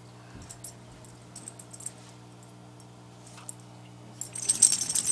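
A puppy's collar tags jingling as she moves: a few light clinks at first, then a loud burst of rapid jangling about four seconds in.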